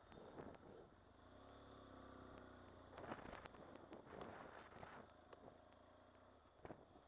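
Motorcycle riding along a road, heard faintly: a low steady engine hum with a few brief rushing bursts of noise over it.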